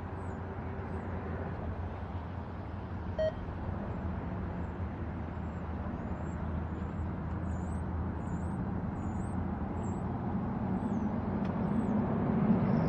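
Diesel engines of a pair of NYSW EMD SD-series locomotives running with a steady low drone that grows louder near the end. A single short beep sounds about three seconds in, and birds chirp faintly throughout.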